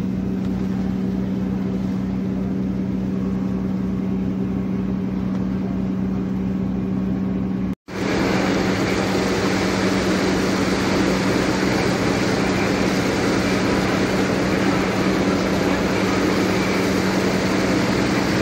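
Ferry's engines droning steadily with a strong low hum and a pulsing rumble beneath. After a brief cut about eight seconds in, a louder rush of the wake water and wind joins the drone.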